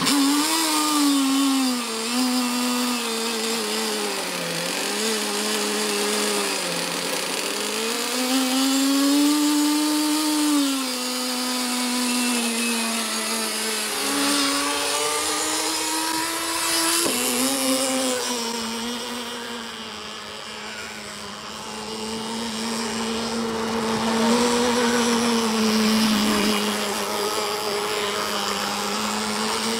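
OS 21XM 3.5cc two-stroke glow (nitro) outboard engine running on the bench just after starting, a high buzzing note whose pitch rises and falls as the throttle is worked. It gets quieter for a couple of seconds about two-thirds of the way through, then picks up again.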